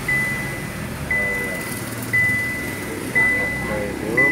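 Car's warning chime dinging about once a second, a single high tone struck afresh each time, over a low background rumble.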